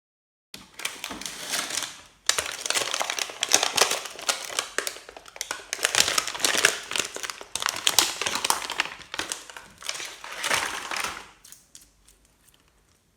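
Slime with crunchy beads being squeezed and kneaded by hand, a dense crackling and crunching in several long stretches that fades out near the end.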